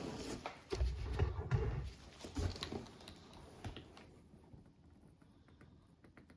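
Handling noise on a suitcase: a quick run of knocks and clicks with several low bumps in the first two seconds, thinning to a few faint clicks by about four seconds in.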